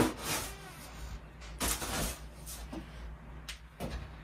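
Snow shovel striking the doorstep with a sharp knock, then several shorter scrapes as snow is shovelled off the step.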